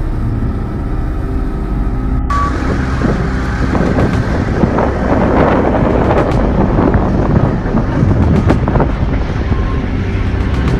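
Steady low outdoor rumble that grows noisier after about two seconds, with scattered clicks and knocks in the middle.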